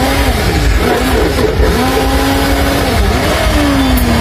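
A motor vehicle engine revving, its pitch rising and falling several times over a heavy low rumble.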